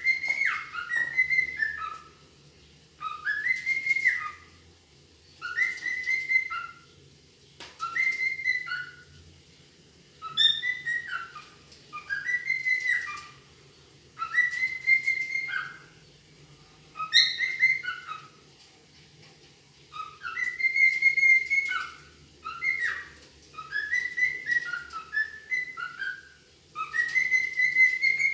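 Cockatiel whistling its song: a short phrase of gliding, rising-and-falling whistled notes, repeated about a dozen times with brief pauses between.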